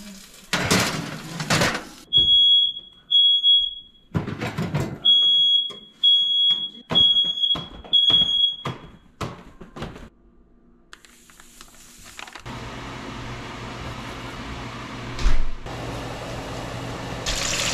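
A kitchen smoke alarm goes off with a run of high, shrill beeps at one pitch, set off by cooking, while a towel is swished at it in loud whooshing strokes. The beeping stops after about nine seconds and a steady hiss and low hum follow.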